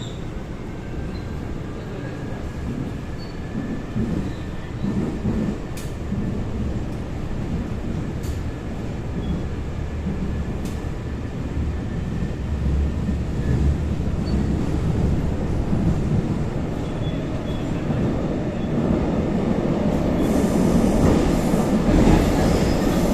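Seoul Line 4 4000-series electric train (Daewoo–Alstom GTO VVVF) running between stations, heard from on board: a steady rumble of wheels on rail with a faint thin tone and a few sharp clicks, getting louder near the end.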